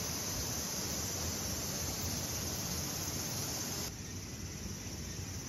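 Steady high-pitched chorus of insects from late-summer outdoor ambience, dropping away sharply about four seconds in, leaving a quieter background.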